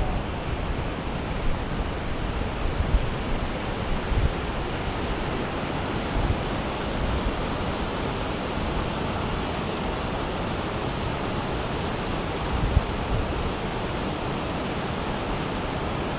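Continuous rushing of Lava Falls, a big whitewater rapid on the Colorado River, as a steady even noise, with wind buffeting the microphone in a few short low gusts.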